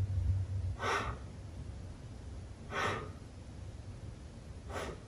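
A woman breathing audibly while holding a seated twist: three short breaths, about two seconds apart.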